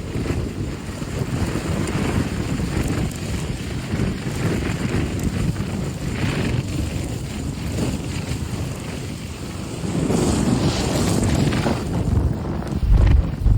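Blizzard wind gusting hard against the microphone, a rumbling buffeting that rises and falls, with a couple of heavier blasts near the end.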